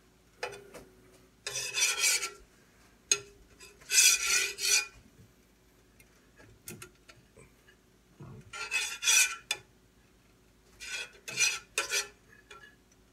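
A spatula scraping and rubbing around the bottom of a hot frying pan in about four short strokes, each under a second, spreading melted butter around the pan.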